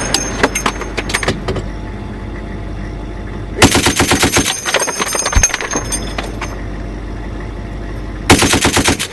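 Browning M2 .50-calibre heavy machine gun firing two short bursts of rapid shots, one about three and a half seconds in and one near the end, with metallic ringing and clinking after the first burst.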